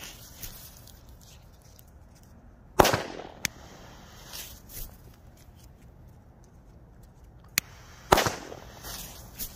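Zhiru Spanish Cracker firecrackers going off on the ground: two loud sharp bangs about five seconds apart, each with a brief echo, with a few fainter pops and cracks between and after them.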